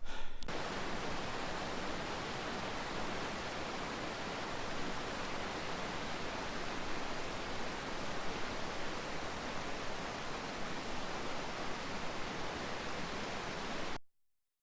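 Steady rush of falling water from a waterfall, an even, unbroken hiss that cuts off suddenly near the end.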